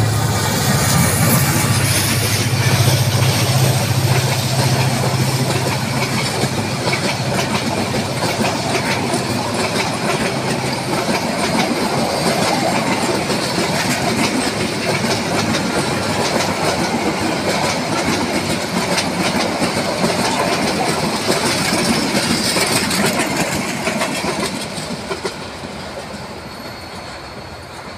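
Diesel locomotive passing close by with its engine droning, the drone fading out about ten seconds in, followed by a long train of passenger coaches rolling past, wheels clattering over the rail joints. The sound dies away as the train recedes near the end.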